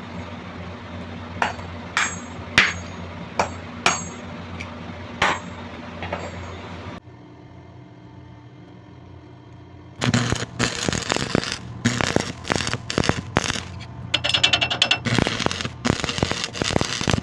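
Metalworking on a hammer: several sharp metallic clinks with a brief ring over a steady hum, then after a quieter pause a dense run of rapid knocking and scraping on metal.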